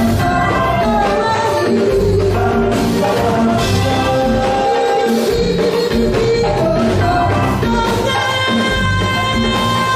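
Live band music with singing over a steady, Latin-flavoured beat.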